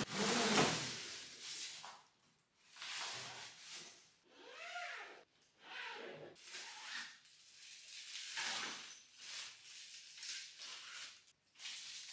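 Packaging being handled and unpacked: a series of rustling, sliding scrapes, about one every second or two.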